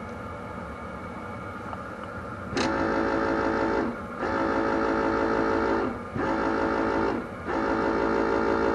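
An electric buzzer tone sounding in four steady stretches of one to two seconds, cutting off and coming back each time, as the brake light switch is worked and checked.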